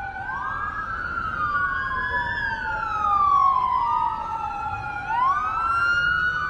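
Two police car sirens wailing out of step, their pitches sliding slowly up and down and crossing each other.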